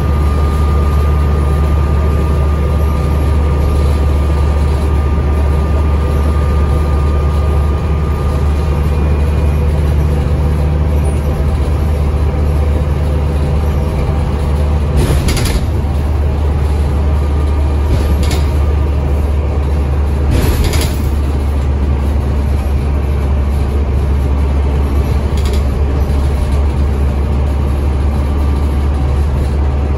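Scania N270UD double-decker bus heard from a passenger seat inside, its rear-mounted diesel engine and ZF automatic gearbox running steadily at road speed with a deep drone. A faint high whine sits over it for the first third, and two short bursts of hiss or rattle come around the middle, a few seconds apart.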